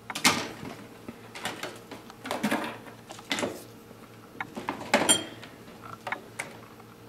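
Coil of 14 gauge sterling silver wire being handled and unwound: a series of light metallic scrapes and clinks, with a brief high ring about five seconds in.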